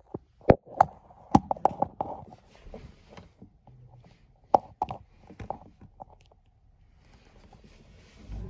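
A series of irregular sharp knocks and taps, bunched in the first two seconds and again a few seconds later.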